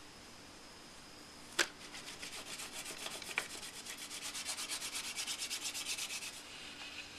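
A wooden stick rubbed rapidly back and forth over aluminium foil, burnishing it down onto a model door panel: a fast, even scratchy rubbing of about six strokes a second. It follows a single sharp tap about a second and a half in and eases off about six seconds in.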